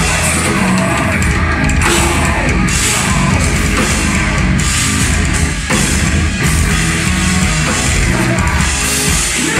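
Live heavy metal band playing loud: distorted guitars, bass and a pounding drum kit, heard from the crowd. The sound is dense and steady, with a brief dip a little over halfway through.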